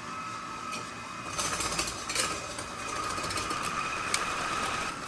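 KitchenAid stand mixer motor running steadily with a high whine, driving a slicer/shredder cone attachment as frozen cheese is fed through. Rattling and knocking come from about a second and a half to two and a half seconds in, with another sharp knock about four seconds in.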